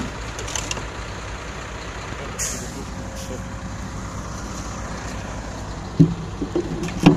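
Heavy vehicle's diesel engine idling steadily, with a short burst of air hiss about two and a half seconds in. Two loud thumps come near the end.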